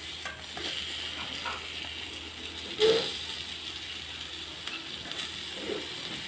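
Shakshuka's tomato sauce and eggs sizzling with a low, steady crackle in a frying pan on the stove, with a sharp knock about three seconds in.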